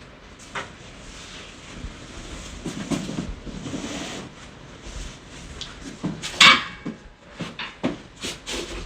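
Chiropractic spinal adjustment: rustling as the body is positioned, then one loud crack of the spine joints about six and a half seconds in, followed by several lighter clicks.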